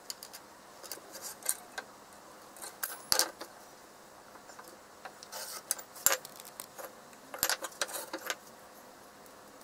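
A steel carpenter's square and pine boards being handled, set down and slid on a wooden workbench: a scatter of light clinks and knocks, the sharpest about three, six and seven and a half seconds in.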